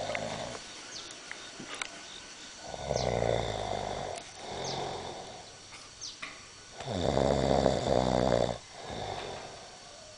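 Deep, rhythmic snoring: two loud, buzzing snores about three and seven seconds in, each followed by a softer breath out.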